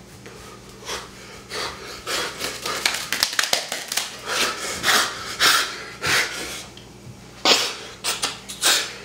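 A man breathing hard, a run of noisy breaths in and out about one or two a second, with a faint steady electrical hum underneath.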